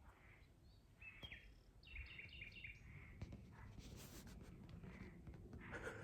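Faint bird calls: soft repeated notes, then a quick run of short chirps about two seconds in, over a low background rumble.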